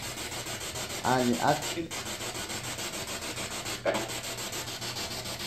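Steady rasping hiss, with a short burst of voice about a second in and a brief sound near four seconds.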